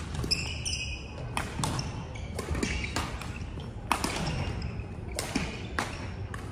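Badminton rackets striking shuttlecocks on several courts, sharp hits every second or so that ring in a large hall, with sports shoes squeaking on the wooden court floor near the start and a low murmur of voices underneath.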